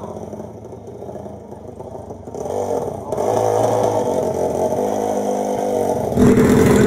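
Four-stroke drag-racing motorcycle engine running and revving. It gets louder about three seconds in and louder again near the end.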